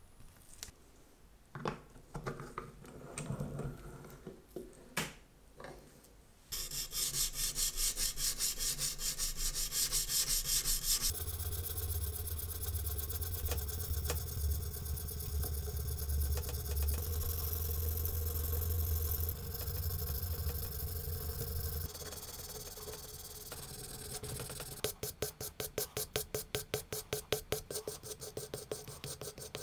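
A hand-held abrasive sanding block rubbed back and forth over the stainless steel case of a Rolex Milgauss clamped in a vise, working down deep scratches. After a few light handling clicks come rapid strokes, then a long steady rub, then about four or five strokes a second near the end.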